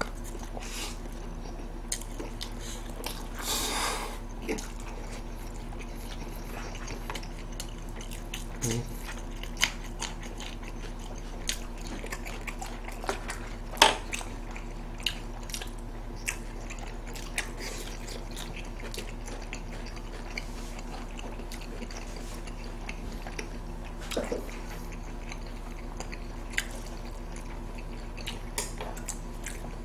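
Close-miked mouth sounds of people chewing and eating braised pork trotters and boiled pork, with scattered small clicks and taps. There is a short rustling hiss about three and a half seconds in, and a steady low electrical hum runs underneath.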